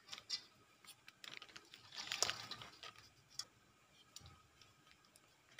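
Thin plastic bag crinkling and wooden sate skewers clicking against a wok, in short scattered bursts, the biggest about two seconds in.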